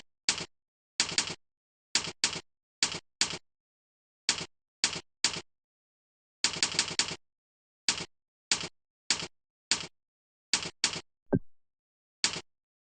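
Computer keyboard keystrokes: sharp clicks, singly and in quick runs of three or four, at an uneven pace. About eleven seconds in, a short tone falls sharply in pitch.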